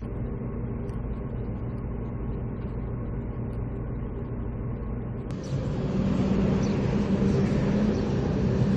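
Steady engine and road noise heard from inside a moving coach bus, a low hum with a few steady tones. About five seconds in it cuts to louder traffic noise beside a busy city road.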